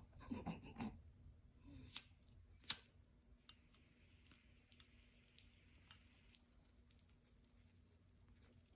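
Near silence with a few faint clicks and handling noises: rustling at first, then two sharper clicks, the louder nearly three seconds in, and scattered light ticks after.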